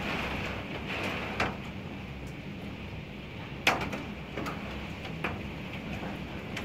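Heavy summer downpour: a steady rush of rain, broken by a few sharp knocks, the loudest a little past halfway.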